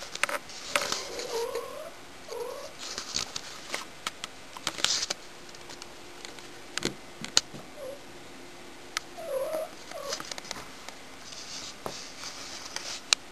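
Domestic cat making several short calls that rise and fall in pitch, in two clusters: near the start and again in the second half. Scratchy rustling and clicks come in between.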